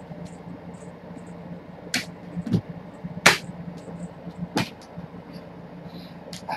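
Several sharp taps and knocks from a kitten pouncing, landing and scrabbling on a hardwood floor while chasing a wand toy, the loudest about three seconds in, over a steady low hum.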